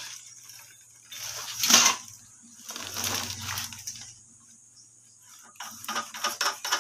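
Handling noise: a porcelain toilet bowl scraped and shifted on woven cement sacks, with rustling in uneven bursts, then a quick run of sharp clicks near the end.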